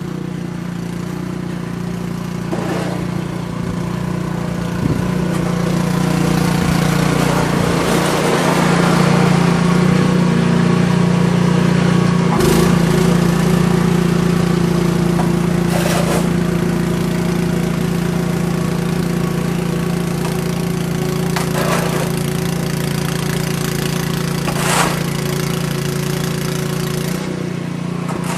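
An engine running steadily, with several brief sharp noises over it.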